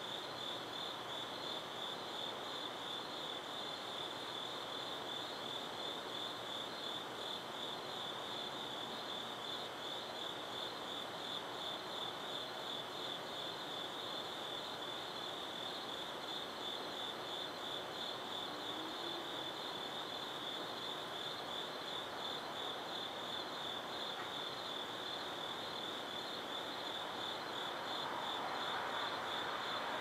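Crickets chirping in a continuous, rapidly pulsing high trill, over a steady hiss. A broader rushing noise swells up near the end.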